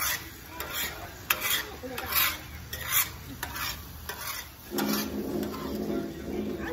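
Spatula stirring and scraping eggs as they fry in a hot pan, in repeated strokes over a sizzle. A steady low hum comes in about five seconds in.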